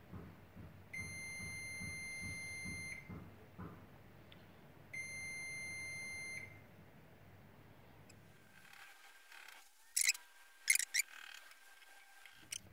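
Digital multimeter's continuity beeper sounding twice, each steady beep about two seconds long with a two-second gap, as the probed MOSFET is switched on and off by the Arduino test sketch: the MOSFET is working. Near the end, a few sharp clicks of the test probes being moved on the circuit board.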